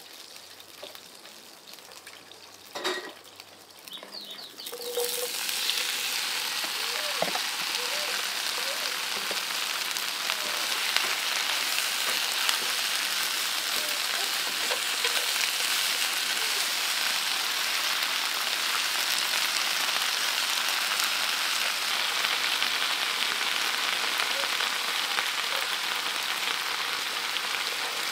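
Food frying in hot oil: after a knock about three seconds in, a loud steady sizzle starts suddenly about five seconds in and keeps going.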